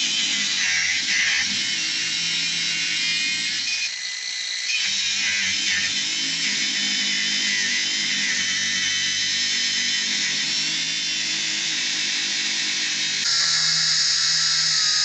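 Angle grinder cutting into the rusty steel frame of a disc plough: a continuous high-pitched grinding whine that dips briefly about four seconds in and gets louder near the end.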